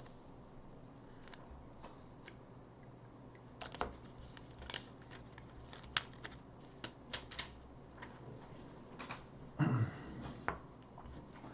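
Scattered light clicks and ticks as the protective film is peeled off the backlight of a replacement iPhone screen, with a brief, deeper sound near the end.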